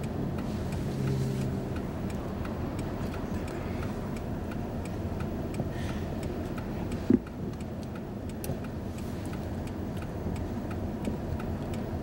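A Jeep SUV's engine and road noise rumble steadily inside the cabin, with a regular ticking about three times a second. A single sharp knock comes about seven seconds in.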